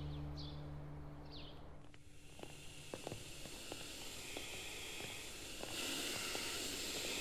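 Footsteps clicking on a hard tiled floor, about two a second, followed near the end by a cordless stick vacuum cleaner running on a carpet with a steady hiss. Two short high chirps are heard near the start.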